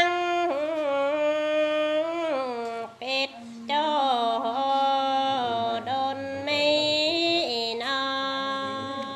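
A woman singing a Dao folk love song unaccompanied, in long, drawn-out held notes that slide between pitches, with a short break for breath about three seconds in.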